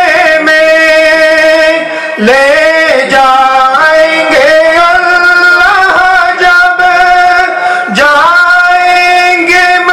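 Devotional male singing in a Sufi zikr chant: long held notes drawn out without clear words, swooping up into a new note about two seconds in, again around four and a half, and near the end.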